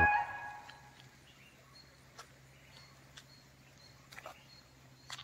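Background music ends on a rising run of notes that fades out within the first second. Then faint outdoor ambience follows, with short high-pitched chirps repeating and a few soft clicks.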